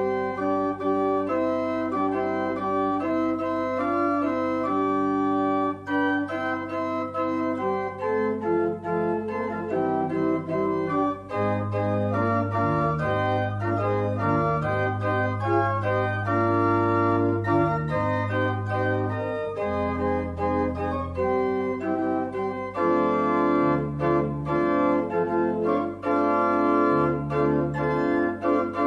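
Organ playing a slow piece of music in sustained chords over low bass notes that move every second or two.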